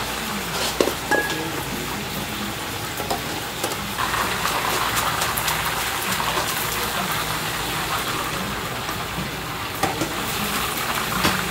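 Commercial kitchen range cooking: a steady sizzling, bubbling hiss as noodles are stirred in a large pot of boiling water. It gets a little louder about four seconds in, with a few clinks and knocks of utensils against the pot.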